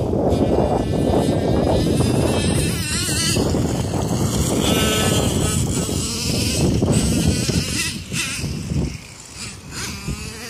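Traxxas T-Maxx RC monster truck's .15 nitro engine revving, a buzzing whine that rises and falls in pitch, under a loud low rumbling noise. The sound drops off briefly about nine seconds in.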